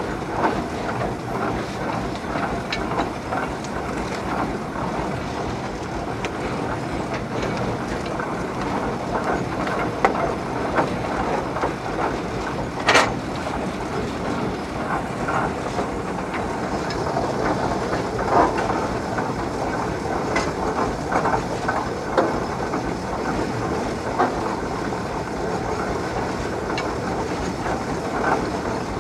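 Steam traction engine running while being driven: a steady clatter of gearing and motion work mixed with the hiss of steam, with scattered sharp clanks and one louder click about 13 seconds in.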